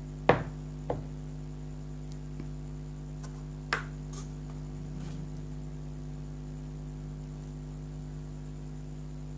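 Steady electrical mains hum, with a few short clicks or knocks: two in the first second and one a little before four seconds in.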